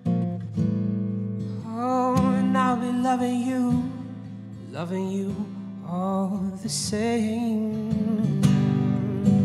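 A man singing long, wavering held notes to his own strummed acoustic guitar accompaniment, in two sung phrases over a steady guitar bed.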